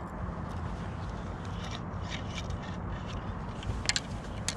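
Light scrapes and clicks of fishing gear being handled on a plastic kayak, over a steady low rumble.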